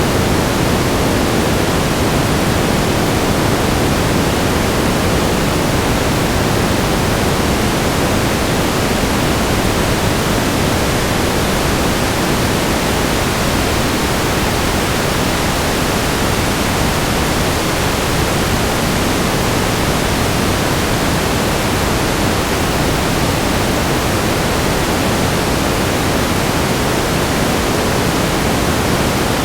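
Static noise: a steady, even hiss across the whole range, weighted toward the lows like pink noise, unchanging throughout.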